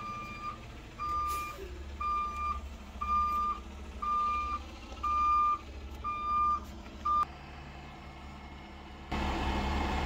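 Dump truck's back-up alarm beeping, about one single-pitched beep a second, over its diesel engine running as it reverses into place. The beeping stops a little after seven seconds in, and about nine seconds in a louder rushing noise from the truck sets in.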